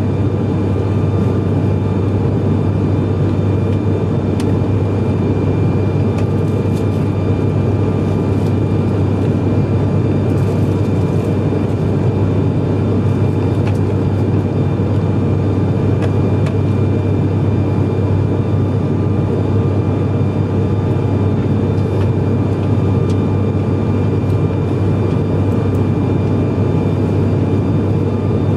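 Cabin drone of an ATR 72-500's Pratt & Whitney PW127 turboprop engines and six-blade propellers in flight: a steady low propeller hum with a fainter high whine above it.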